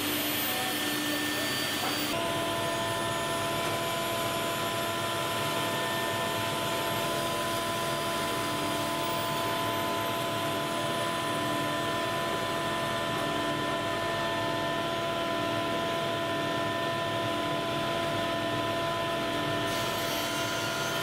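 Steady electric motor whine: several fixed tones over a hiss, with a slow regular pulsing lower down.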